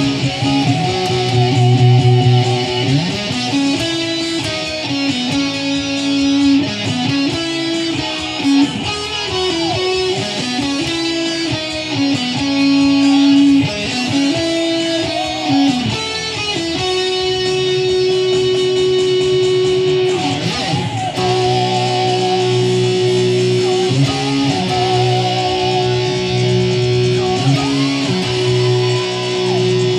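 Kramer electric guitar playing a lead solo line. The first half is quick runs and string bends, and from about halfway it settles into long held notes with wide vibrato.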